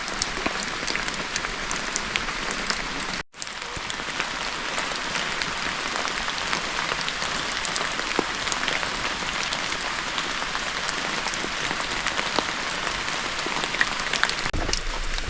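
Steady rain pattering, a dense patter of many small drops, cut off for an instant about three seconds in.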